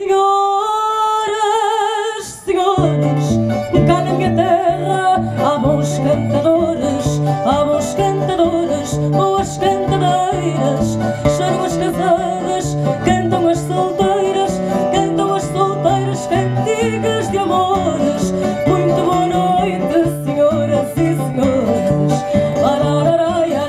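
Live fado: a woman singing through a PA with two guitars accompanying her. It opens on a held, wavering sung note alone for about two seconds, then the guitars come in with plucked, rhythmic accompaniment under the voice.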